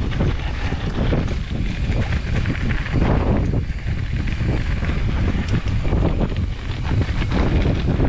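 Strong wind buffeting a GoPro Hero 9's microphone, a loud low rumble that swells and dips in gusts, with scattered faint clicks and rattles.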